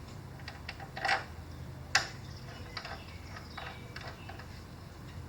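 Scattered light metallic clicks and taps of hand work on brake caliper bolts and tools, with a louder rattle about a second in and one sharp click about two seconds in.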